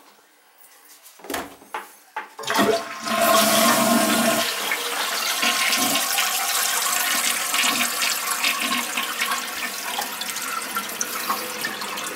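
American Standard toilet flushing: a few clicks, then a loud rush of water at about two and a half seconds that settles after about two seconds into the steady hiss of the tank refilling. This is a test flush after the toilet is reset on a repaired closet flange.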